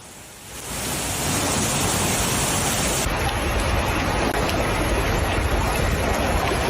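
Heavy rain pouring down in a steady, dense rush, its tone changing slightly about three seconds in.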